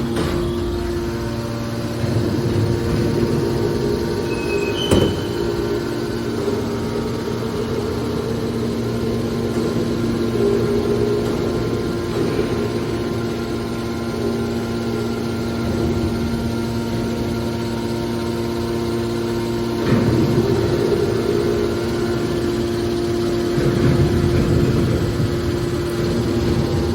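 Industrial hydraulic baling machinery running with a steady two-tone hum over a rumbling mechanical noise, with louder swells a few times and a sharp metallic knock about five seconds in.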